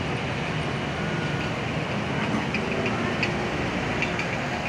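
Large coach's diesel engine idling steadily at the roadside, mixed with street traffic noise, with a few faint light clicks about halfway through.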